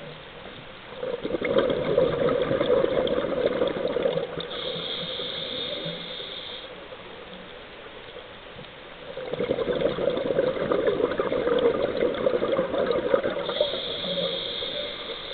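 Scuba diver's regulator exhaust: bubbles gurgle and rush past in two long exhalations about eight seconds apart. A thin high hiss follows each one.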